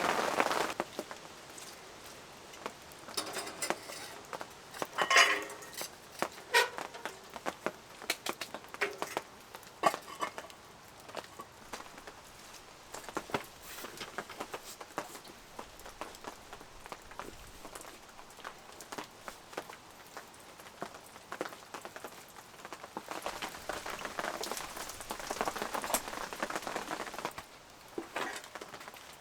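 Steady rain falling, with scattered knocks and clatters of camping gear being handled; the loudest clatters come about five to ten seconds in.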